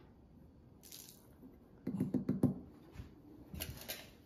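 Quiet tabletop handling: a metal spoon and a small glass cup with liquid being spooned out, giving faint drips and light clicks. A brief, louder muffled sound comes about two seconds in.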